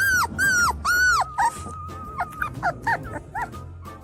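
Small dog yipping in a quick run of high-pitched yelps, about three a second and loudest in the first second and a half, then a long wavering whine and a few fainter yips.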